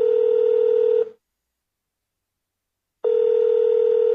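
Telephone ringback tone, the ringing a caller hears on the line: a steady low tone that stops about a second in and comes back after a two-second pause.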